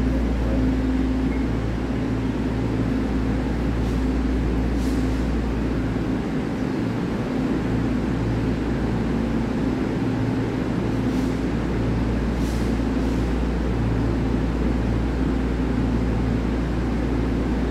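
A Taiwan Railway EMU3000 electric multiple unit standing still at the platform, its on-board equipment running: a steady low drone with a hum tone on top that comes and goes every second or so.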